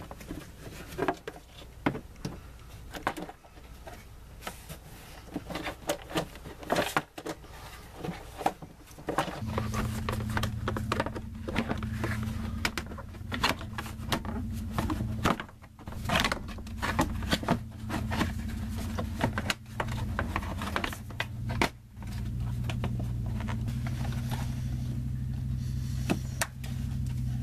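Scattered clicks, taps and rattles of plastic engine and splash-shield covers being handled and clipped into place by hand. A steady low hum comes in about a third of the way through.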